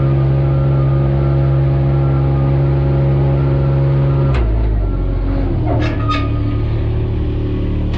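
A locomotive's diesel engine running with a steady drone; about halfway through a sharp metallic bang, after which the engine note drops, followed by a couple of metal clanks and a brief squeal.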